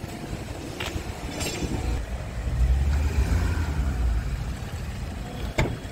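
Wind buffeting the microphone in a low, uneven rumble, with two knocks in the first couple of seconds (the second a short rattle) and a sharp click near the end, as the Scania cab's side storage hatch and fittings are handled.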